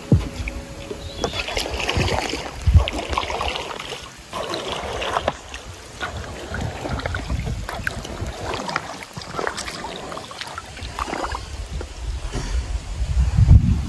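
Irregular water splashing and sloshing from a small boat on a river, with wind rumbling on the microphone.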